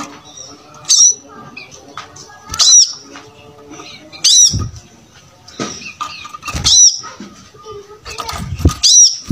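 Brown-throated sunbird (kolibri kelapa) calling: loud, sharp high notes about every two seconds, with softer twittering between them and a few low thumps.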